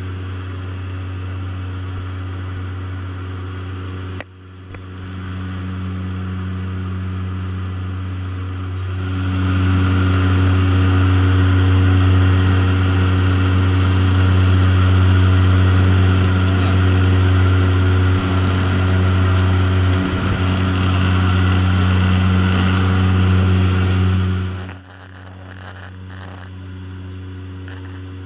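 Seaplane propeller engine droning in flight, heard from inside the cabin as a steady low hum with cabin noise. It grows louder about nine seconds in and drops abruptly near the end.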